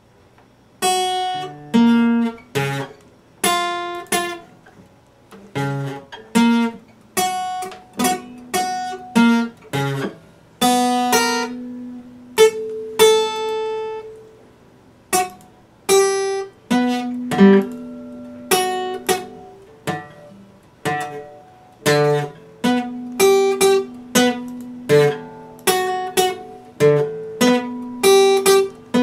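Epiphone steel-string acoustic guitar played solo, starting about a second in: plucked notes and chords picked one after another, each ringing and dying away, some held longer.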